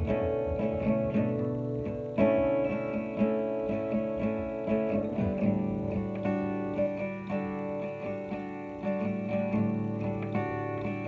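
Acoustic guitar strummed in a steady rhythm, the chords ringing between strokes with no singing.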